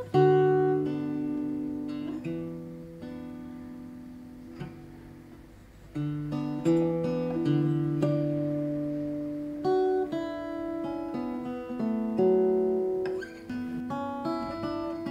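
Hollow-body electric guitar played clean and slowly: single notes and chords plucked a few seconds apart and left to ring out and fade.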